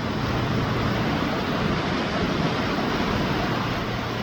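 Ocean surf washing onto a beach: a steady rush of breaking waves that swells slightly in the middle.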